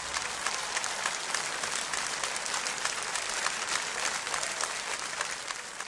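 Audience applauding, a dense steady patter of many hands clapping that begins to fade near the end.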